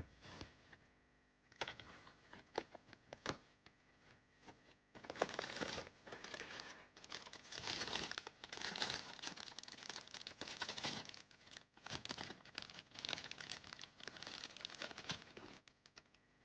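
Blind-box packaging crinkling and tearing as it is opened by hand: a few scattered clicks and rustles at first, then about ten seconds of dense crinkling that stops shortly before the end.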